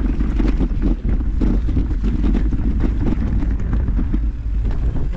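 Wind buffeting the microphone over the rumble and rattle of a mountain bike riding a rough, rocky trail, with frequent short knocks.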